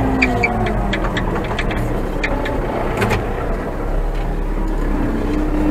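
Old Manitou telehandler's diesel engine running steadily, heard from the cab, with irregular clicks and rattles of the machine.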